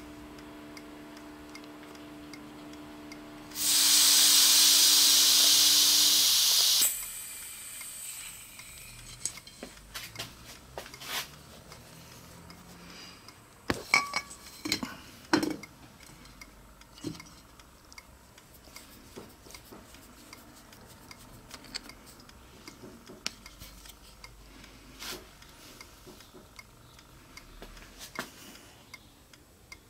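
Compressed air hisses loudly for about three seconds through a brass air chuck on a model wheel loader's tyre valve, over a steady low hum that stops as the hiss ends. Light metallic clicks and taps follow, loudest in a cluster about halfway through, as the brass chuck is worked off the valve.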